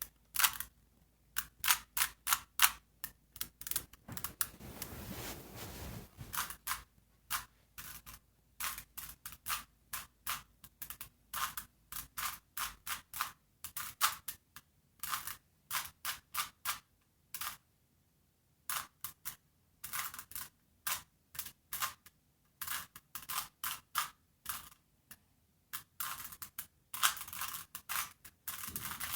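A 3x3 Rubik's cube being turned by hand: irregular runs of sharp plastic clicks as the layers are twisted, quick clusters of turns broken by short pauses, one of about a second near the middle.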